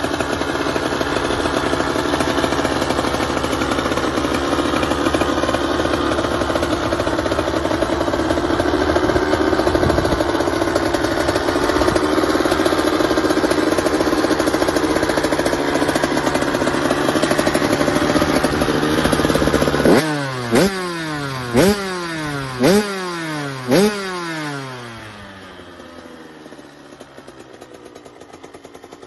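Two-stroke motocross bike engine running steadily on a stand for about twenty seconds, then revved in four sharp blips about a second apart, each rising and falling back. It quietens near the end.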